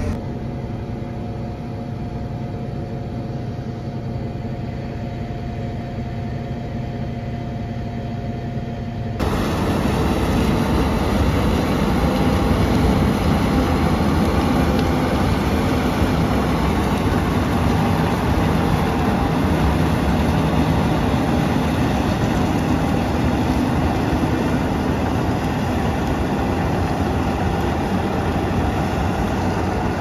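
John Deere tractor engine running steadily, heard from inside the cab. About nine seconds in it gives way to a louder, denser and steady noise of heavy farm machinery running in the field, as a combine harvests.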